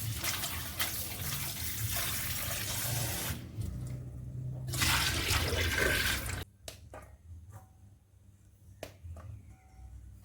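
Water running from a tap into a sink in two spells, the second cut off abruptly about six seconds in, followed by a few light clicks and knocks.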